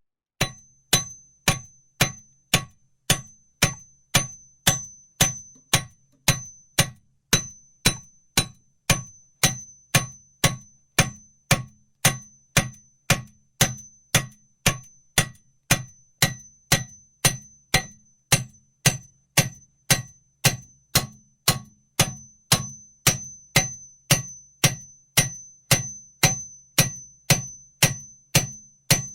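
Hammer striking metal in a steady rhythm, about two blows a second, each blow giving a sharp clang with a lingering high ring.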